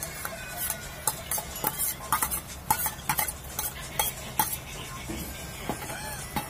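Steel ladle clinking and scraping against an aluminium pot as boiled tapioca is stirred and mashed: a string of irregular sharp clinks that thins out after about four and a half seconds, over a low steady hum.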